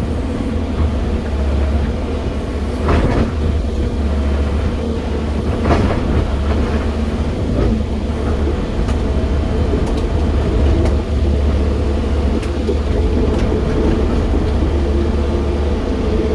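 JCB 215 excavator's diesel engine running with a steady deep drone, with a couple of sharp knocks about three and six seconds in.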